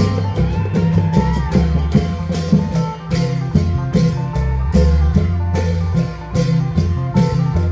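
Isan long-drum (klong yao) band music: long drums and clashing cymbals on a fast, regular beat, under a plucked-string melody and a steady bass line.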